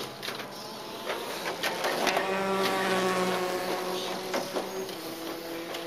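Kyosho dNaNo 1:43-scale radio-controlled cars running on the track, their small electric motors giving a steady high whine that swells in the middle as cars pass. A few light clicks sound through it.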